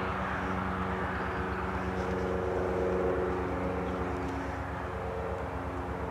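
Diesel locomotive engine running out of sight, a low steady throb with several held tones that shift pitch about two seconds in and again near the end.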